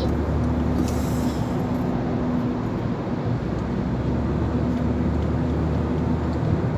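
Steady road and engine noise heard inside a moving car's cabin, with a constant low hum.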